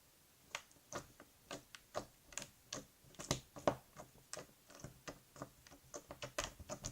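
Clear putty slime being poked and pressed with fingers, giving irregular sticky clicks and small pops, a few a second, coming faster near the end.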